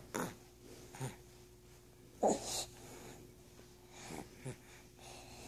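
Snoring: short wheezy snorts and breaths at uneven intervals, the loudest about two seconds in, over a faint steady hum.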